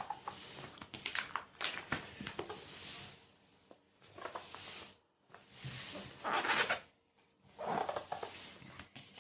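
Plastic binder sleeve pages being handled and turned: crinkling rustles with light clicks, in several uneven bursts, the longest a little over halfway through.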